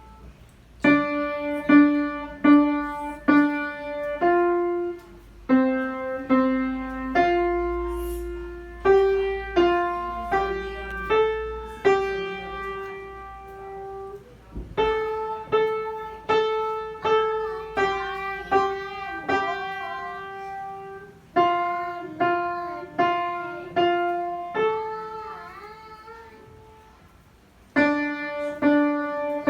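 A child playing a simple tune on the piano: a single-note melody over plain low notes, in short phrases with a pause about halfway and another near the end.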